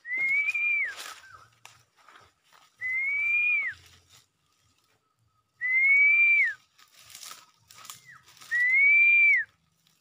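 Four long whistled notes, about three seconds apart. Each note rises slightly and then drops off sharply at its end. This is the kind of call used to lure black-naped orioles.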